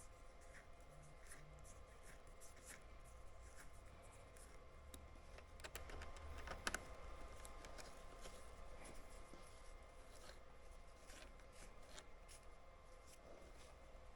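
Faint clicking and rubbing of small parts being handled and fitted, with one sharper click about seven seconds in, over a faint steady hum.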